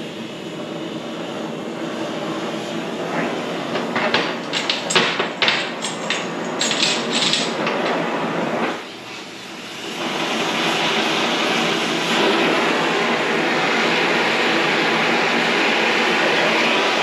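Oxy-fuel heating torch burning with a steady hissing roar. A run of sharp pops and crackles comes about four to seven seconds in, then a brief drop near nine seconds, and a steadier, louder roar from about ten seconds on as the flame heats the steel.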